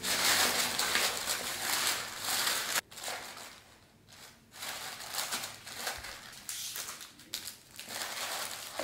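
Packing paper crinkling and rustling as it is handled and pressed into a cardboard mailer box. It is loudest in the first three seconds, drops away briefly, then rustles again.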